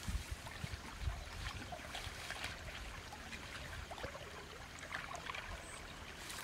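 Faint trickling and light splashing of shallow muddy water stirred by hands feeling along the bank, with small scattered ticks.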